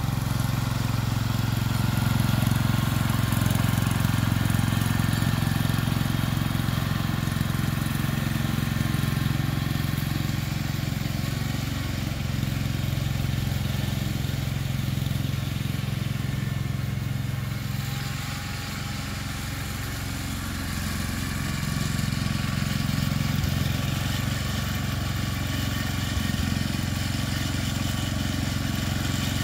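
Small ride-on garden tractor engine running steadily as it tows a small hay rake, dipping in loudness a little past the middle and then coming back up.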